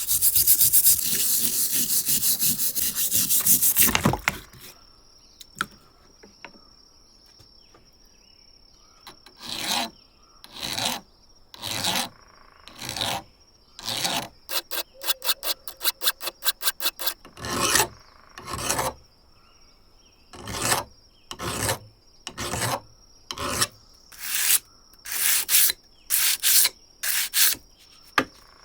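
Hand filing strokes: a fast, continuous run of rubbing strokes for about four seconds that stops. After a pause come separate slower strokes about one a second, with a quick flurry of short strokes in the middle.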